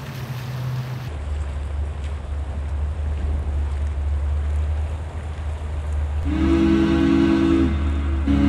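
Steady low rumble of the Infiniti G37's V6 as the car rolls slowly; about six seconds in, a loud horn of several steady tones sounds, stops briefly and sounds again.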